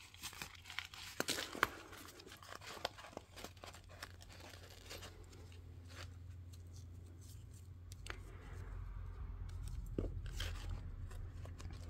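Paper and card rustling and crinkling as a layered paper tab is handled and fitted onto the edge of a wallpaper journal page, with a few sharp crackles in the first couple of seconds, over a faint low hum.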